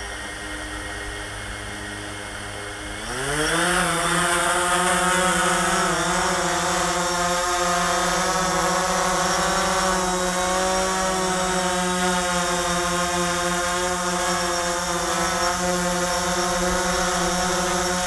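DJI Phantom 4 quadcopter's motors and propellers running slowly, then about three seconds in rising in pitch and getting louder as the drone lifts off, and holding a steady hum while it flies. A low wind rumble on the microphone runs underneath.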